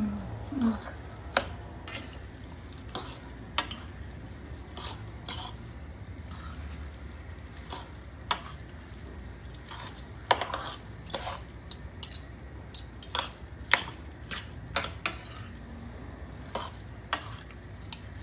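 A cooking utensil knocking and scraping against a pan as pancit bihon noodles are stirred and tossed, in sharp irregular clinks, sometimes several close together.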